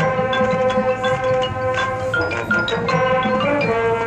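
High school marching band playing its field show: held chords over mallet percussion from the front ensemble.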